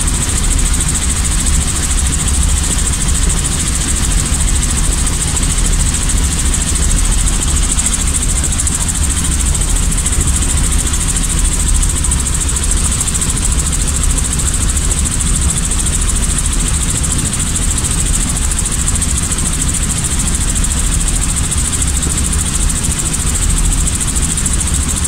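Robinson piston helicopter running steadily: an unbroken engine and rotor drone with a deep rumble and a high hiss.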